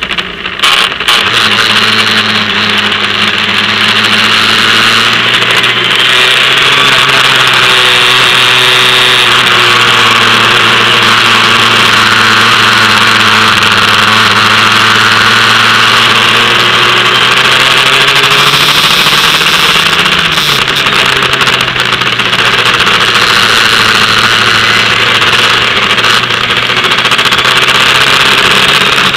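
Formula Ford single-seater's engine running hard, heard from the cockpit over a constant hiss of wind and spray on a wet track. It grows suddenly louder about a second in, the pitch climbs slowly, drops once at a gear change about two-thirds through, then holds steady.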